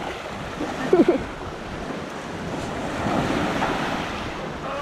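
Waves washing in, with wind buffeting the microphone; a short pitched sound about a second in is the loudest moment.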